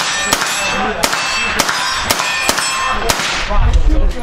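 A suppressed AR-15-type carbine firing a quick string of about eight semi-automatic shots through a Thermal Defense Solutions Spectre 3D-printed suppressor. Each shot is a sharp crack with a brief metallic ring, and the firing stops a little after three seconds in.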